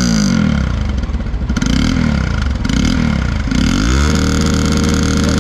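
Hero XPulse motorcycle's single-cylinder engine being revved in neutral through a newly modified aftermarket silencer, showing off the new exhaust note. The revs climb and drop several times, then rise about four seconds in and are held high.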